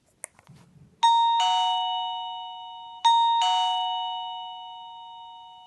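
Smart video doorbell chime ringing a two-note electronic ding-dong, a high note then a lower one, twice about two seconds apart, each fading slowly, after a faint click near the start.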